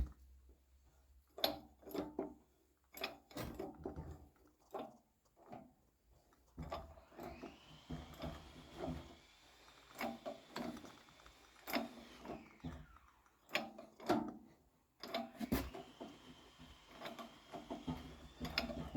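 Metal tools and parts clinking and knocking during tractor front-axle repair work, with a small electric power tool spinning up, running for several seconds and winding down, twice.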